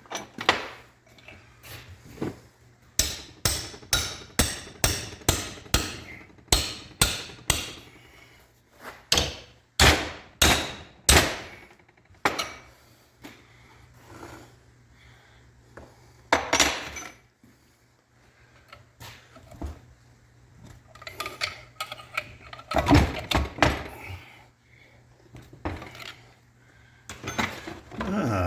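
Hammer blows: a quick, even run of strikes, about two or three a second, for several seconds, then a few louder blows, with scattered knocks and clatter later.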